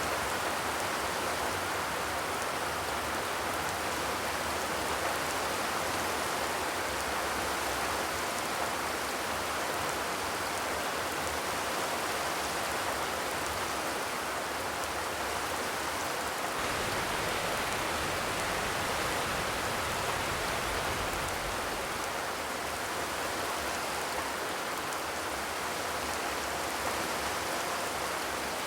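Steady, continuous rainfall pattering on surfaces, with a soft low rumble swelling briefly about two-thirds of the way through.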